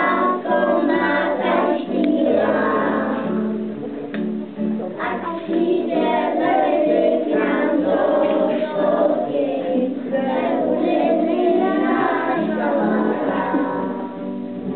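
A song with several voices singing over an accompaniment whose bass moves in held steps, playing as music for a children's pair dance.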